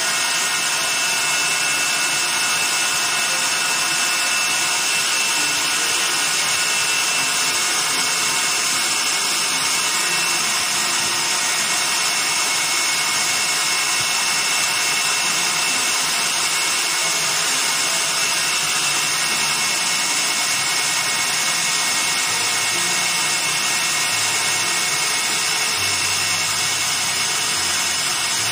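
Electric stand mixer running steadily, its motor giving a high whine as the beater turns cake batter in a stainless steel bowl.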